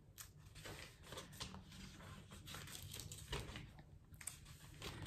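Faint paper rustling and soft page flicks as the thin pages of a Hobonichi Techo A6 planner are leafed through, with one louder handling tap about three seconds in.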